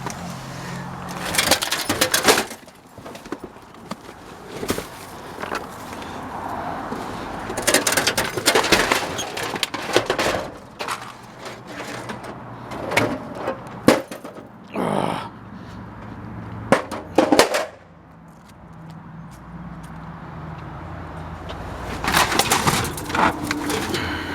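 Scrap metal and debris clattering and clanking inside a dumpster as it is rummaged through, in several bursts of rattling impacts with quieter pauses between them.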